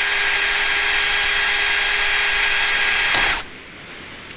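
Mac cordless drill running steadily with a small 7/64-inch bit, drilling a pilot hole into the metal of a transfer case input seal, with a steady whine. It winds down and stops a little over three seconds in.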